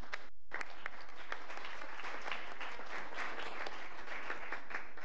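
Audience applauding, many hands clapping; it starts about half a second in.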